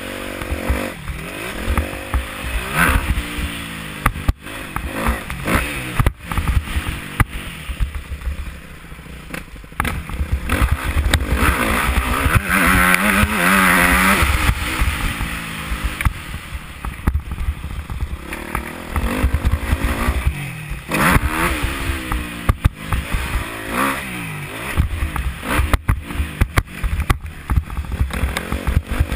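Dirt bike engine revving up and down over and over as the rider accelerates and backs off around a motocross track, heard from a helmet-mounted camera, with wind noise and occasional sharp knocks.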